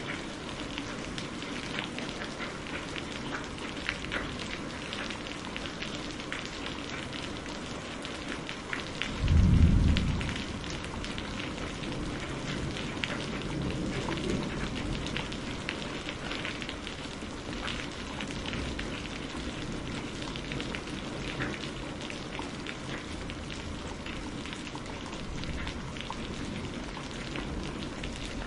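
Steady rain falling, with many separate drops ticking. About nine seconds in, a short, low rumble of thunder rises over it and fades within a couple of seconds.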